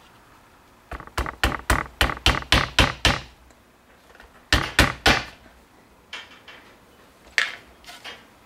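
Rubber mallet tapping a spiral fork ring on a wooden board to bend its edges down. A quick run of about nine knocks comes at roughly four a second, then a few more scattered strikes.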